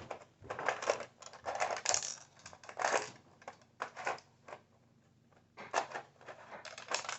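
Rubik's Perplexus Hybrid 2x2 plastic puzzle cube being twisted by hand, its layers clicking and clattering in quick irregular bursts, with a short pause about five seconds in.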